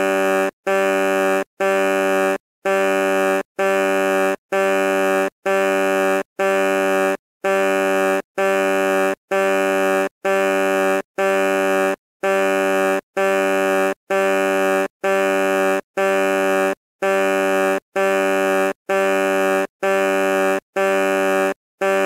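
Truck horn sounding in short, loud blasts of one steady low note with many overtones, repeated about once a second with brief breaks between.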